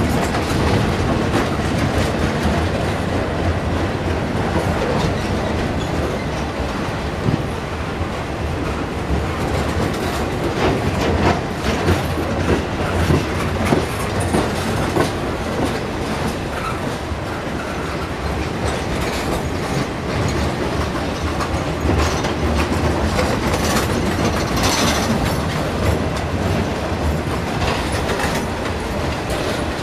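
Loaded freight flatcars rolling past at steady speed: a continuous rumble of steel wheels on rail, with repeated clicks and knocks as the wheels cross rail joints.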